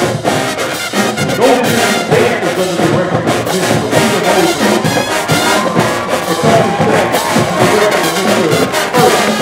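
High school marching band playing a brass-heavy tune: trumpets, trombones and sousaphones over drums keeping a steady beat.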